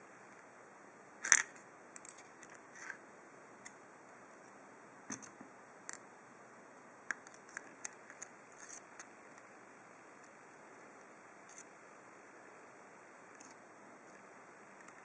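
Small metallic clicks and taps of a hook pick and tension wrench working the pin-tumbler keyway of a Lockwood 301/63 padlock. They come in scattered clusters, the loudest about a second in, over a faint steady hiss.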